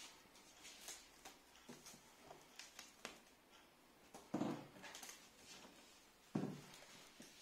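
Clear plastic stretch film being pulled off a hand roll and wrapped around a cardboard box: quiet crinkling and crackling, with two louder dull thumps against the box, about halfway through and near the end.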